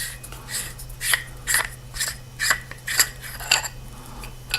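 Threaded metal body of a Nitecore TM38 Lite flashlight being unscrewed by hand: a series of short rasping scrapes, about two a second.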